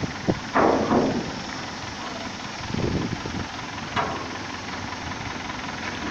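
Steady rushing background noise with a few brief, indistinct voices of workers.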